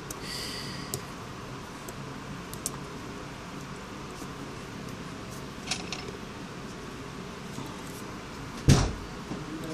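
Small faint clicks of metal tweezers and a tiny SIM-card slot being handled and pressed into place on a phone's circuit board, over a steady low hiss. A single loud thump comes near the end.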